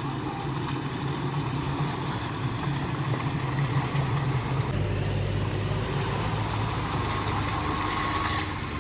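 Off-road SUV engine running at low speed on a rough trail, its note steady and then dropping to a lower pitch about halfway through.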